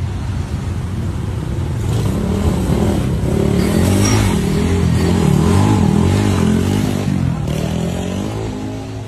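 Motorcycle with a loud aftermarket (knalpot brong) exhaust revving hard, its pitch rising and falling again and again, loudest in the middle, over steady street traffic.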